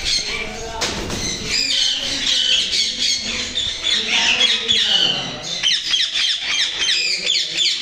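A flock of aviary parakeets squawking and screeching, many short shrill calls overlapping without a break.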